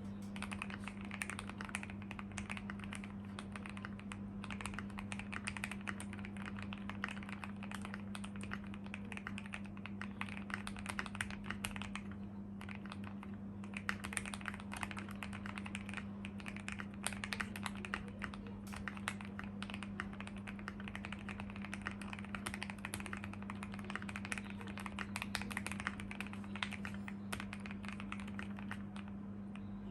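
Typing on an MW65 custom mechanical keyboard with lubed Gateron Ink Black V2 linear switches, a polycarbonate plate and Cherry-profile keycaps: rapid, continuous keystrokes with a brief pause about twelve seconds in, over a steady low hum.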